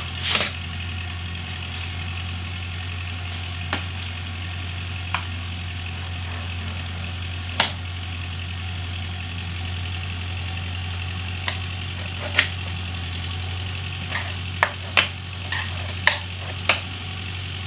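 Scattered sharp clicks and light scraping of a screwdriver tip scoring a cut line onto a plastic motorcycle tail piece, a few clicks coming close together near the end, over a steady low hum and hiss.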